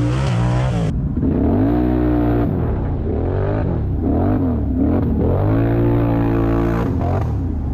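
ATV engines running, one revving up and down over and over while the others hold a steady idle.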